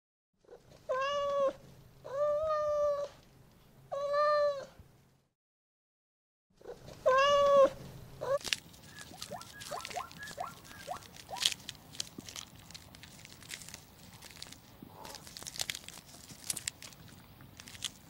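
A kitten meowing four times in short, high calls. After that come only faint, irregular clicks and rustles.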